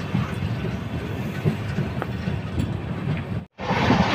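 Superfast express passenger train running at speed, heard from an open coach door: a steady rumble of wheels on track with occasional faint clicks. The sound cuts out briefly about three and a half seconds in, then comes back louder.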